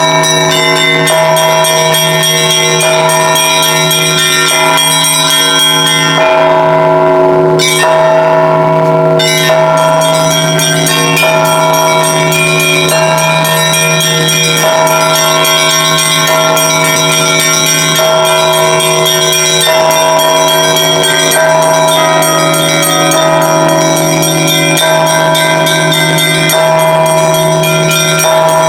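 Russian church bells rung continuously by a bell-ringer: small and middle bells struck in quick overlapping patterns over the steady hum of a larger bell.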